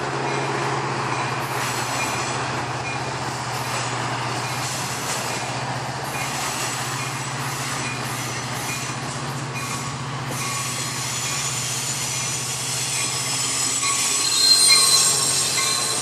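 Amtrak F59PHI diesel locomotive approaching with its engine running in a steady low drone. A high thin squeal from the wheels builds and peaks about a second before the end, as the locomotive draws alongside.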